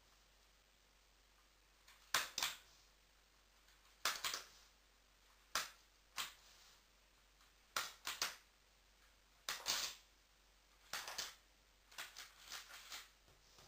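Plastic clicks and snaps from a Lego-built replica shotgun's mechanism being worked or fired: about a dozen sharp clicks, often in quick pairs, one to two seconds apart.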